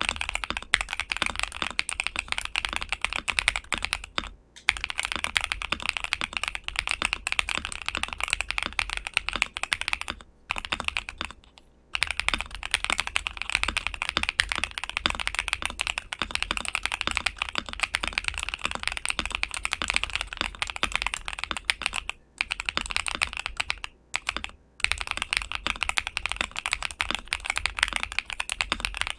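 Fast continuous typing on a modded ASUS ROG Azoth mechanical keyboard with LEOBOG Graywood v4 linear switches on a PC plate, dampened with foam and PET film layers. The keystrokes come in quick dense clatter, with a few short pauses.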